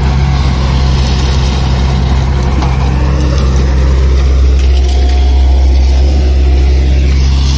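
Diesel engine of a Sany SY140C crawler excavator running with a steady low drone as it digs and swings. It gets slightly louder about halfway through.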